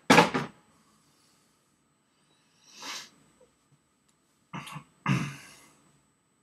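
A man coughing: a loud cough right at the start, then after a pause two more coughs close together about five seconds in.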